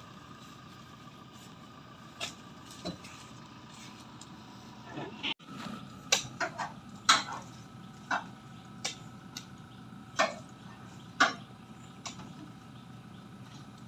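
Irregular sharp knocks and clinks, about eight in the second half, from oil palm fruit bunches and a long pole being handled against the loaded bed of a pickup truck. A faint steady drone sits under them.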